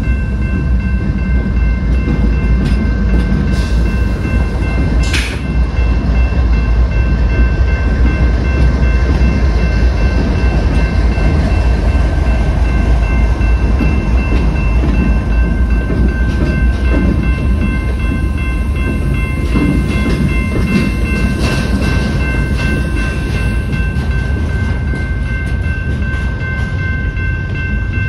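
BNSF freight train passing: its GE diesel locomotives rumble by, then double-stack intermodal cars roll past with wheel clatter and sharp clanks. A steady high ringing of several tones runs throughout.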